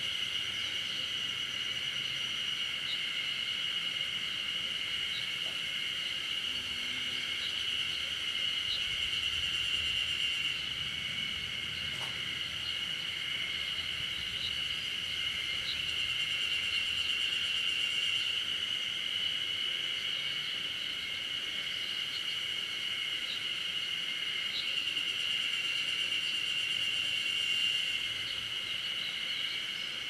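Steady, high-pitched chorus of insects in summer forest, swelling and easing a little a few times, with a single sharp click about twelve seconds in.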